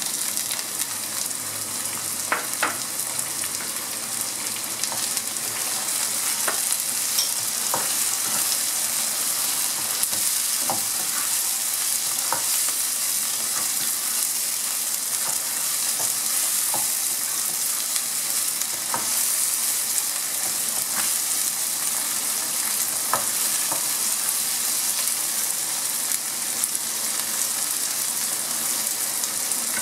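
Onions and chopped tomatoes sizzling in hot oil in a non-stick pan, with a spatula stirring and scraping against the pan in scattered clicks.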